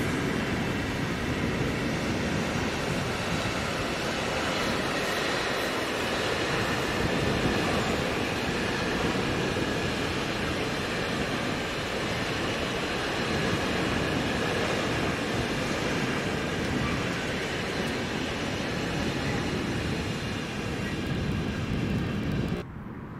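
Electric train passing close by: a steady rumble and rolling of wheels on rails, which drops off abruptly near the end.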